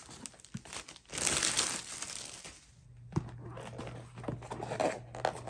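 Packaging being handled, crinkling and rustling, loudest for a couple of seconds about a second in, followed by a few light clicks and softer rustles.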